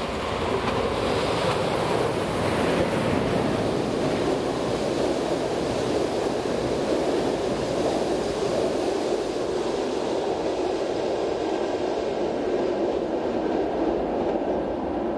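Electric locomotive-hauled passenger train with yellow coaches passing close below: a steady rumble of wheels on rails that grows louder in the first second and then holds evenly.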